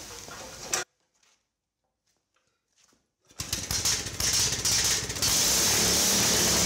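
After about two seconds of near silence, a Honda GX390 single-cylinder four-stroke engine starts a little over three seconds in. It runs loud through a short home-made exhaust with a beer can fitted as a muffler, and settles into a steady, very loud running sound near the end.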